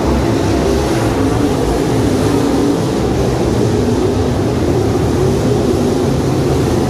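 A pack of dirt-track race cars running laps on the oval: a loud, continuous engine drone whose pitch wavers as the cars pass. It is picked up on a phone's microphone.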